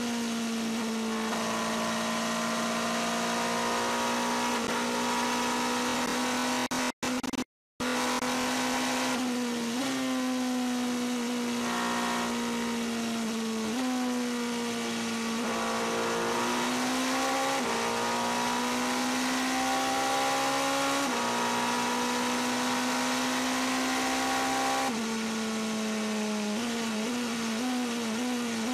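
Onboard sound of the Toyota TS040 Hybrid Le Mans prototype's V8 engine running at near-steady revs over a haze of wind and tyre noise, with brief dips in pitch every few seconds. Near the end it steps down several times in quick succession and the pitch falls as the car slows. The sound cuts out briefly about seven seconds in.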